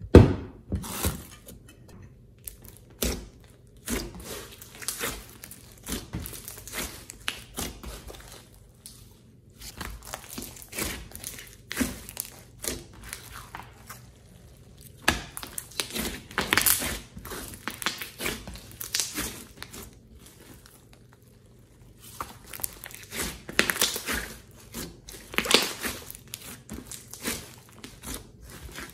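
Hands squeezing, stretching and pressing a large lump of slime mixed with floam beads and clay, giving sticky crackling and popping in irregular clusters. There is a sharp smack at the very start, and short pauses where the hands stop.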